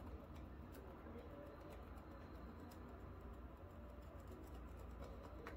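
Near silence: a low steady hum with a few faint, scattered ticks.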